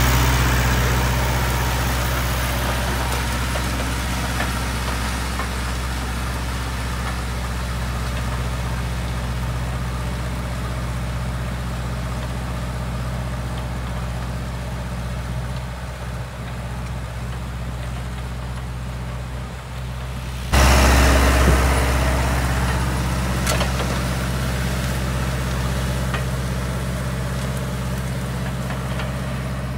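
Tractor engine running steadily under load as it pulls a disc harrow through dry, cloddy soil. About two-thirds of the way through, the sound suddenly grows louder.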